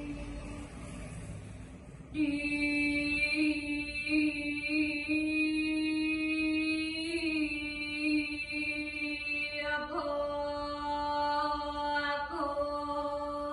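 A single voice chanting a Sanskrit sloka in Balinese Dharma Gita style. The notes are long and held with slow wavering ornaments. After a quieter first two seconds, the pitch shifts about seven, ten and twelve seconds in.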